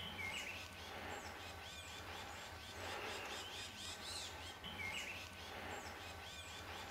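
Songbirds chirping and singing: many short notes that rise and fall, over a faint outdoor background hiss.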